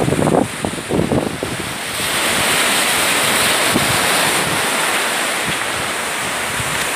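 Sea surf washing against the shore, a long rush of breaking waves that swells up about two seconds in and holds, with wind buffeting the microphone.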